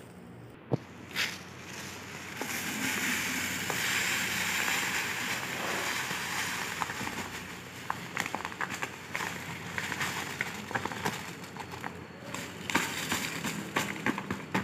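Cumin seeds poured from a plastic bag into a plastic jar: a steady rushing hiss for several seconds, then scattered ticks and plastic crinkling as the last seeds trickle in.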